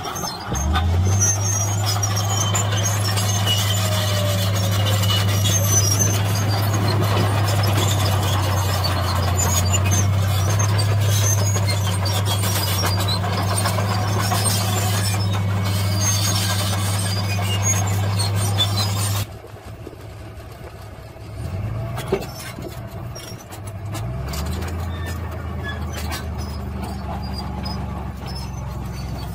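A Komatsu D53P bulldozer's diesel engine runs at a steady speed while its steel tracks squeal and clank over crushed-rock fill. After a sudden cut about two-thirds through, a quieter truck engine revs up twice and then runs steadily as a dump truck tips its bed.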